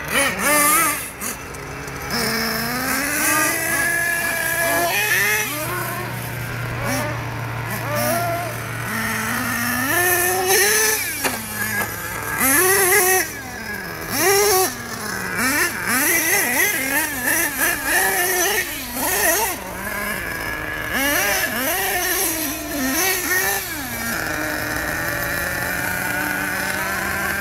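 Small nitro engine of a radio-controlled off-road monster truck, revving up and down again and again as it is driven, its pitch rising and falling every second or so. In the last few seconds it holds a steadier tone.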